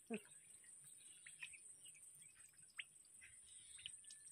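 Near silence: faint outdoor ambience with a steady high-pitched whine and a few faint short chirps scattered through it.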